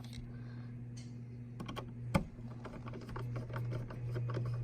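Small clicks and ticks of hand tools and wire working at the wall connector's ground terminal as the ground conductor is fastened, with one sharper click about two seconds in, over a steady low hum.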